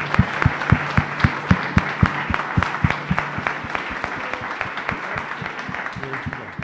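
Audience applauding, with single claps standing out about four times a second over the crowd's clapping. The applause thins and stops near the end.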